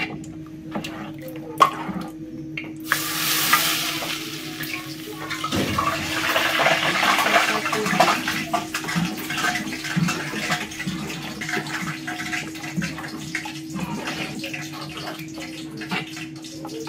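Hot melted butter sizzling in grated-corn pamonha batter in an aluminium pan, with a sudden burst of sizzling about three seconds in as more hot butter goes in. The sizzle carries on with a spoon scraping and clicking against the pan as the batter is stirred and fried.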